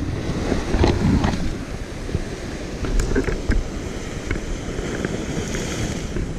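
Sea surf washing and breaking over rocks, with wind buffeting the microphone in a heavy low rumble. A few light clicks are scattered through it.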